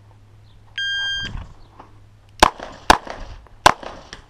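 A shot timer's start beep about a second in, one steady high electronic tone lasting half a second, then shots from a 9mm CZ 75 SP-01 pistol: three sharp reports over about a second and a half, with a fourth right at the end.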